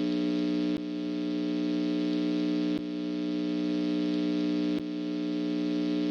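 Synthesized electronic alert tone: a steady, harsh buzzing drone on two low pitches with many overtones, broken by a brief click-like dip about every two seconds.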